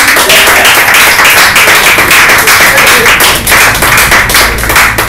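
Audience applauding, many hands clapping at once, thinning to a few scattered claps near the end.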